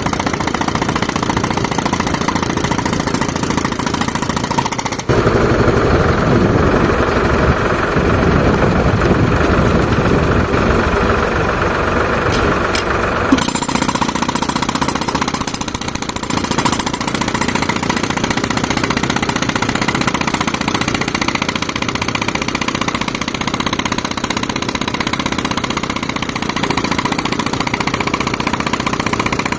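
Tractor engine running steadily while driving an air compressor, with a louder, rougher stretch from about five to thirteen seconds in.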